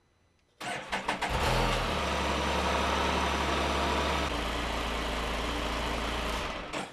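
2014 Can-Am Spyder RT SE6's 1330cc three-cylinder engine is cranked briefly by the starter, catches and idles steadily for about five seconds, then shuts off near the end. It is a short first run on fresh oil, to pressurize the system and get oil flowing through the new filter before checking for leaks.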